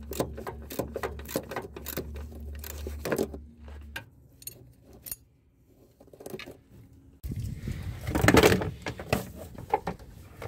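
Hand ratchet clicking in quick strokes as a bolt on the brake hose bracket of the trailing arm is worked loose, then a louder clatter of metal tools and parts about seven seconds in, loudest near eight to nine seconds.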